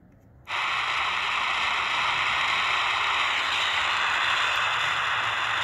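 C.Crane CC Skywave portable radio's speaker coming on about half a second in to a steady hiss of AM static on 620 kHz. A faint whistle slides downward about three seconds in. The weak fringe station is barely there, a tiny S1 signal on the radio's stock antenna.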